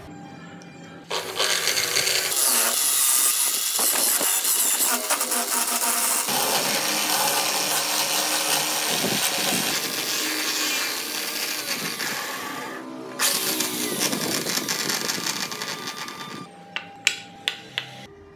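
Electric drill run as a makeshift lathe, spinning a small wooden wheel while a hand chisel cuts into it with a steady, harsh scraping. It starts about a second in, stops briefly near the middle and starts again, and a few sharp clicks follow near the end.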